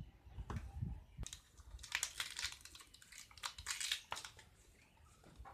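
A few dull knocks as green bamboo tubes are moved about on the floor, then fresh banana leaves rustling and crinkling as they are torn and folded.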